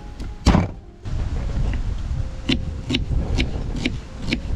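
Knife slicing an onion on a wooden cutting board: a run of sharp knife strikes against the board, about two a second, in the second half. About half a second in comes a single louder thump, the loudest sound, over a low rumble.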